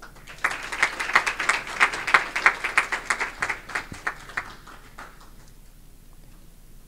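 Applause: a group of people clapping, with crisp individual claps standing out, starting about half a second in and dying away about five seconds in.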